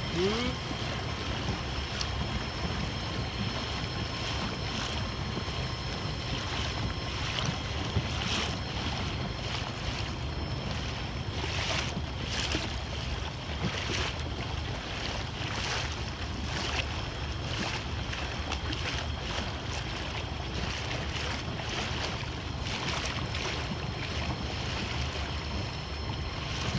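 Small boat's outboard motor running with a steady hum, with irregular splashes of water against the hull and wind buffeting the microphone.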